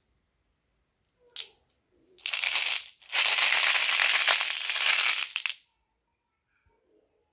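Glass marbles clattering in a rapid stream of small clicks, as if being poured or tumbled out, in two runs: a short one about two seconds in, then a longer one of about two and a half seconds. A single short clack comes before them.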